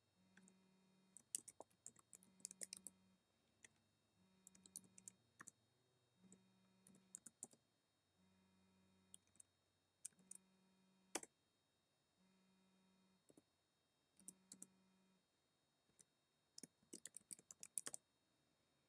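Faint computer keyboard typing: scattered keystroke clicks, often in quick runs of several, with pauses between them.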